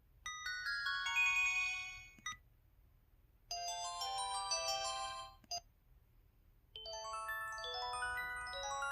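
KTF-TR2000 mobile phone's built-in alert tones: three short electronic jingles of quick, bright chime-like notes, one after another with brief pauses between them. A short click follows each of the first two.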